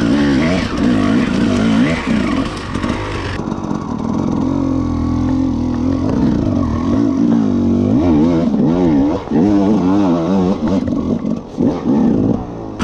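Dirt bike engine revving up and down in quick, repeated throttle blips, with a few brief drops in revs near the end.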